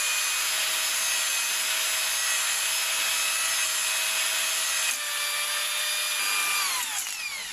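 Electric drill spinning a three-stone cylinder hone inside the oiled cast-iron bore of an XUD9 diesel engine block: a steady motor whine over the rasp of the stones on the cylinder wall as the bore is honed to a crosshatch finish. Near the end the drill is let off and its pitch falls as it winds down.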